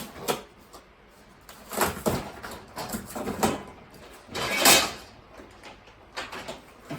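Cardboard box of a flat-packed metal shelving unit being pulled open and handled: a series of short scrapes and rustles, the longest and loudest about two-thirds of the way through.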